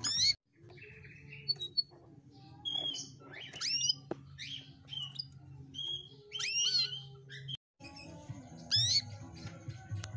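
Female domestic canary calling: short separate chirps and sweeping up-and-down whistled notes, spaced out rather than run together into song, over a low steady hum. These are the female calls played to prompt a silent male canary to sing.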